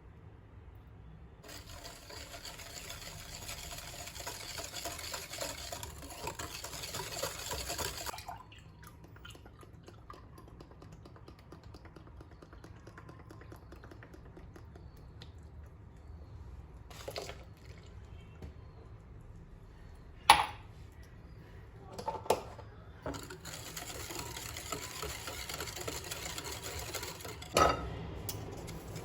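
Liquid poured into a bowl twice, each pour lasting several seconds, with a few sharp clinks of kitchen utensils or dishes in between.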